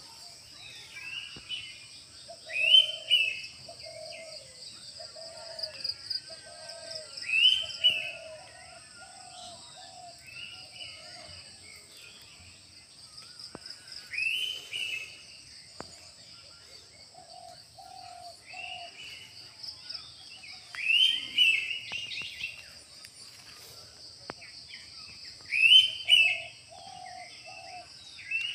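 Morning birdsong from several birds. One loud chirping call repeats about every five or six seconds, and softer, lower calls come in short runs of three or four. A steady high-pitched hiss runs underneath.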